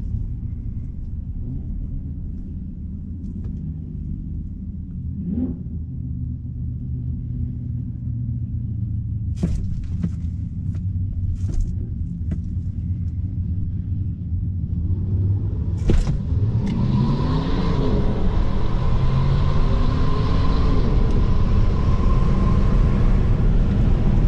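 Cabin sound of a Tesla Model 3 Performance at a drag strip: a steady low rumble with a few sharp clicks while staging. About sixteen seconds in, the car launches, and road and wind noise with a steady high whine swell and stay loud through the rest of the eighth-mile pass.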